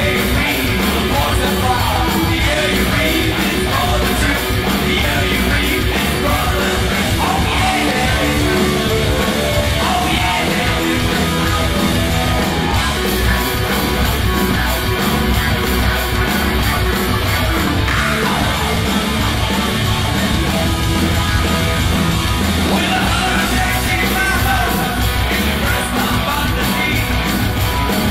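Live rock band playing loud: distorted electric guitars, bass and drums.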